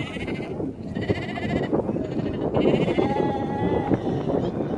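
Sheep in a tightly packed flock bleating one after another: several quavering bleats about half a second each, one of them lower-pitched about three seconds in, over a steady noise of the crowded animals.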